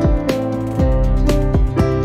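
Background music: plucked notes over a deep bass line, with a regular beat.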